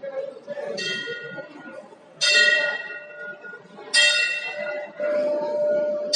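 A temple bell rung during aarti, struck four times about two seconds apart; the first stroke is softer, and each rings with several high tones before fading. Devotees' voices chant underneath.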